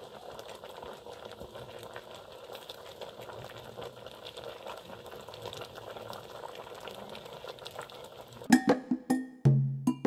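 A pot of cassava in coconut milk simmering over a wood fire: a soft, steady bubbling with fine crackle. Near the end, music with a wood-block beat comes in.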